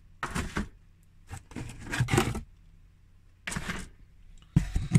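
Grey plastic miniature-figure sprues and a cardboard box being handled, with the sprues stacked on the table: several short bursts of plastic clattering and rustling with brief pauses between them.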